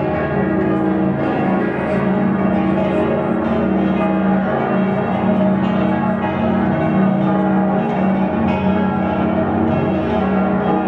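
Many church bells ringing together from several churches across a city, their strokes overlapping into one dense, continuous peal.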